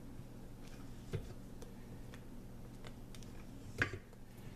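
A spatula clicking and scraping against a stainless steel mixing bowl while folding melted chocolate into beaten eggs: scattered light clicks, with one louder knock about a second from the end, over a low steady hum.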